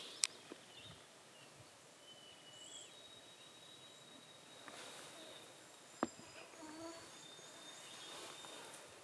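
Quiet outdoor ambience: faint high bird calls and a thin, steady high-pitched tone, broken by two sharp clicks, one just after the start and one about six seconds in.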